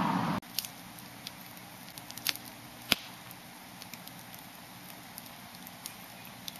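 Wood campfire crackling: scattered small snaps and two louder pops a little past two seconds in, over a soft steady hiss.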